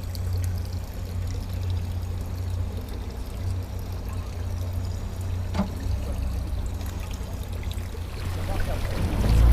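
Water rushing and splashing along the hull of a small motorboat under way, over a steady low rumble that swells sharply near the end.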